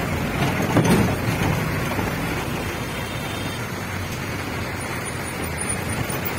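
Steady running noise of a passenger vehicle heard from inside, engine and tyres on a rough mountain road with rattling, and one louder jolt about a second in.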